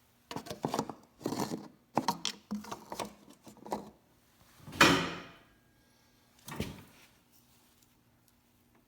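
Workshop handling noises: a run of irregular scrapes and knocks, the loudest about five seconds in and a last one a little later, as work starts on draining the snowmobile's chain case oil through its level plug.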